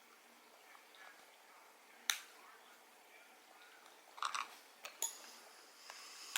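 Small, sharp clicks and clinks of an air rifle magazine's metal and plastic parts being worked apart by hand: one click about two seconds in, a quick cluster around four seconds, another a second later and one more at the end.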